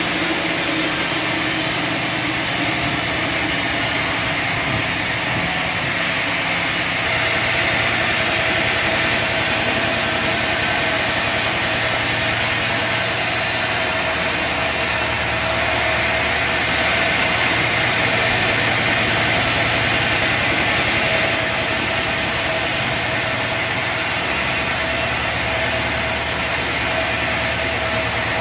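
Bandsaw sawmill running steadily: its motor and band blade keep up an even mechanical noise with a low hum and a steady mid-pitched tone.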